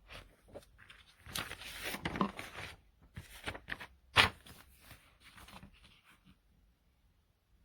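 Handling noises: irregular rustling and clicking, with one sharp knock about four seconds in.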